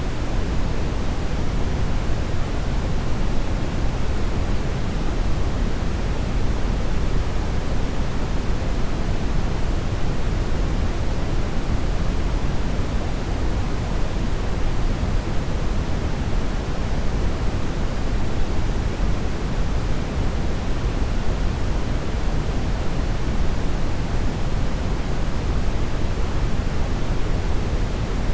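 Continuous brown noise: a steady, unchanging hiss weighted heavily toward the low end, like a deep rushing roar, with no tones or events in it.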